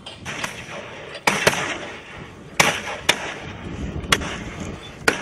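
Shotgun shots at a partridge covey: about half a dozen sharp bangs at irregular spacing, some in quick pairs, over a steady rustle of wind and movement.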